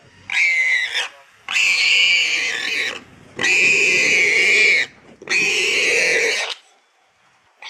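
Warthog screaming in distress as lionesses bite it: four loud squeals, the middle two more than a second long, after which the cries stop about two-thirds of the way through.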